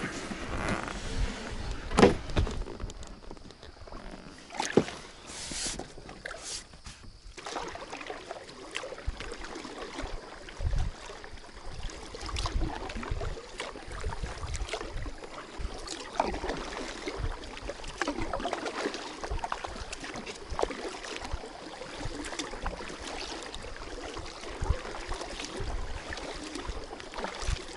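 Inflatable kayak being paddled with a double-bladed paddle: repeated, irregular paddle strokes splashing in the water with low bumps against the hull. Two sharp knocks come in the first few seconds as the boat is pushed off and boarded.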